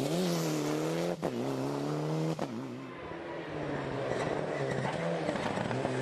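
Mitsubishi Lancer Evolution rally car's turbocharged four-cylinder engine revving hard as it drives past at speed, with two sharp cracks about one and two and a half seconds in. The engine note fades briefly, then comes back as the car approaches again.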